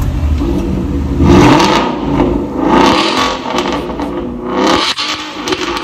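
Ford Mustang's valvetronic exhaust with the valve open, the engine revved in a few sharp blips that rise and fall, the loudest about a second and a half in.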